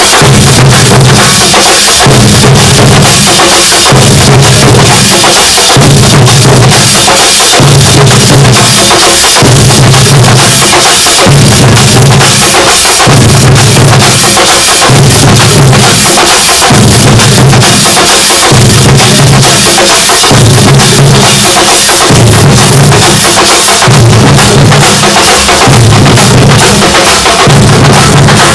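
Thambolam percussion ensemble drumming, very loud: a booming low drum figure repeats roughly every second and three-quarters under a dense, rapid clatter of sharp strokes.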